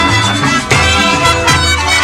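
A marching band playing a Latin-style tune: brass with sousaphones carrying a moving bass line, over steady drum beats.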